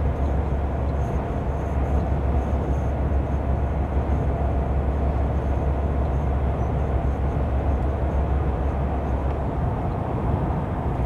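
Steady road noise heard from inside a moving vehicle's cab at motorway speed: engine and tyre rumble with a strong, deep low hum.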